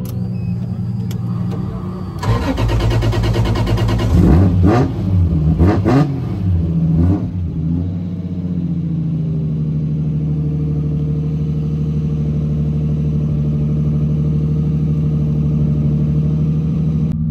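Drift car's engine revving: about two seconds in it climbs and drops sharply several times over some five seconds, then settles into a steady, even running note.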